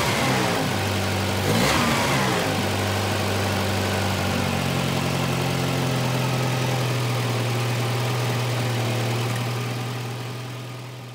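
1985 Volvo 240's four-cylinder engine idling, its speed wavering and rising in the first couple of seconds as the newly replaced idle air control valve is reconnected and lifts the idle. It then holds a steady, even idle and fades out near the end.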